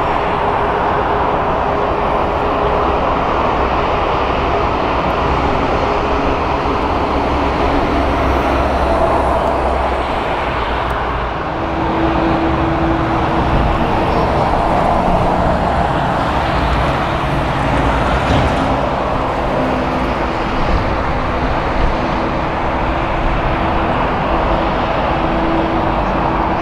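Airbus A380 jet engines rumbling as the airliner climbs away after takeoff. About eleven seconds in the sound changes to an Airbus A320's two jet engines at taxi power: a steady hum over the engine noise.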